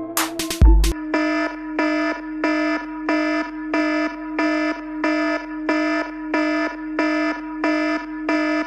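Electronic backing music: a few drum hits, then about a second in a pulsing synthesized tone that repeats evenly about twice a second over a steady low drone.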